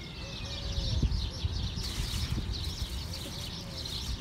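Small birds chirping continuously, with a few short gliding calls, over irregular low rustling and bumps that are loudest about a second in.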